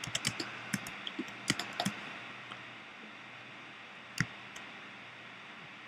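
Computer keyboard keys clicking: a quick scatter of clicks in the first two seconds, then one sharper click about four seconds in, over a faint steady hiss.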